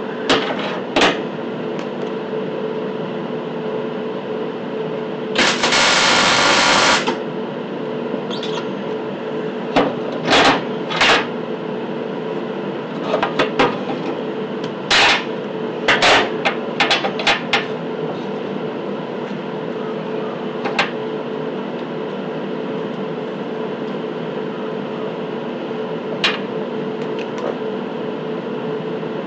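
Clanks and knocks of a steel bracket, locking pliers and a welding ground clamp being handled on a diamond-plate steel table, over a steady hum. About six seconds in, a short loud hiss lasts about a second and a half.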